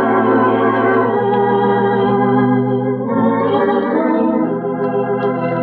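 Organ music bridge marking a scene change in a radio drama: a few held chords, one after another.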